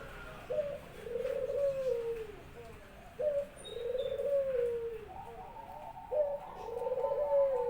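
Pet puter (ringneck dove) cooing: a short note, then a long wavering coo, repeated three times about three seconds apart. A second, higher rolling call joins from about five seconds in.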